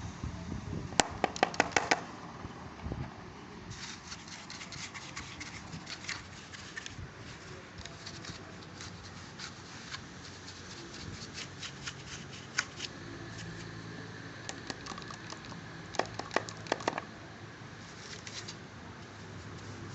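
Hands working small hard parts: a quick run of sharp clicks about a second in and another around sixteen seconds, with scattered scratching and light tapping between.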